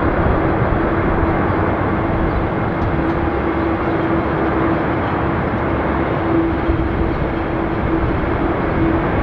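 Twin turbofan engines of an Airbus A330-300 airliner running as it rolls along the runway, a steady jet noise with a constant low tone through it.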